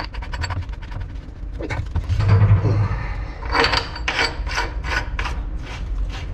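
Teflon (PTFE) tape being wrapped onto a threaded galvanized pipe fitting by hand: a series of short rasping rubs, coming quicker and louder from about halfway, about two or three strokes a second.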